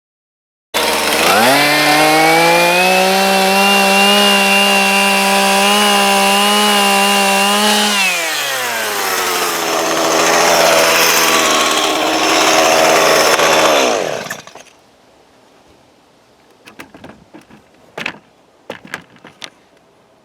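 A chainsaw engine starts up abruptly and runs high and steady, then drops in pitch about eight seconds in and runs lower and rougher until it cuts out around fourteen seconds in. A few faint ticks and taps follow.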